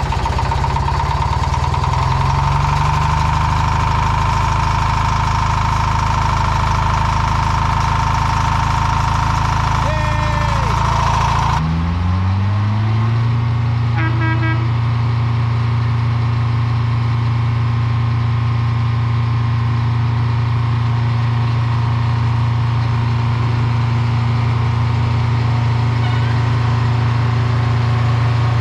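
Diesel engine of a railroad track-maintenance machine running just after a hard start on a balky battery circuit. It runs fast with a steady whine, then about twelve seconds in drops to a steady, lower idle.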